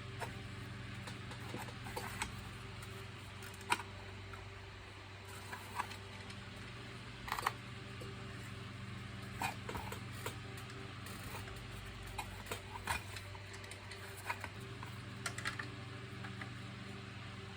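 Scattered light clicks and taps, irregular and about a dozen in all, from small plastic vacuum-cleaner parts being handled, over a steady low hum.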